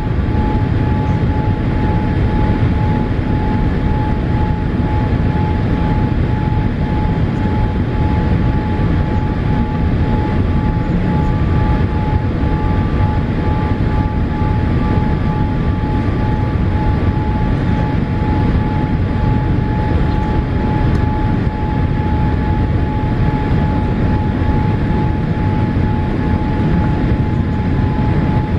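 Airliner cabin noise inside a Boeing 787-8 in flight on approach: a steady rush of airflow and engine noise with a thin steady whine held throughout.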